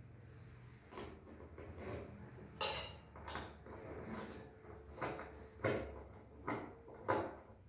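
Irregular knocks and clatters of hard objects being handled, about six sharp ones spread over the few seconds.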